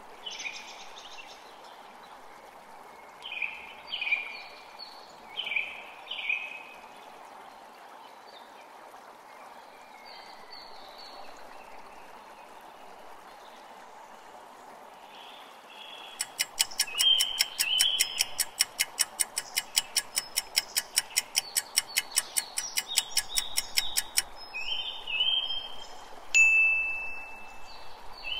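Quiz countdown sound track: soft chime notes over a faint steady tone, then fast ticking of about four ticks a second for some eight seconds, and a single held chime-like tone near the end.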